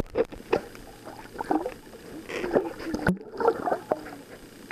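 Muffled water sounds picked up by a camera held underwater: irregular gurgling and sloshing with scattered short knocks.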